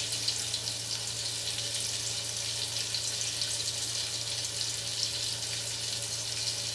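Chopped garlic sizzling in melted butter in an aluminium pot: a steady crackling fry as the garlic is sautéed toward golden brown, with a constant low hum underneath.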